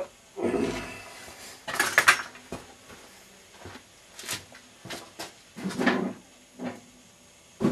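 Loose metal parts and tools clattering and clinking as someone rummages through them: a handful of separate knocks and rattles, the loudest about two seconds in.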